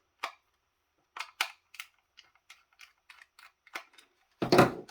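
Scattered small clicks and ticks of a Torx screwdriver and the small plastic transmitter housing being worked and handled, with a louder knock and rattle near the end.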